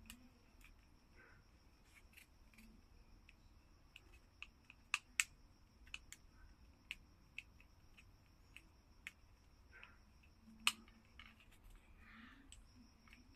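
Buttons of a small handheld RF remote clicking under a thumb: a dozen or so short, sharp clicks at irregular intervals, a few much louder than the rest. A faint steady high-pitched whine sits behind them and drops out briefly near the end.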